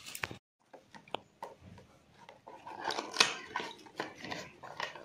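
Handling of a small cardboard earbud box as its flaps are opened, with light rustling of plastic wrap: scattered small clicks and rustles, the sharpest click about three seconds in.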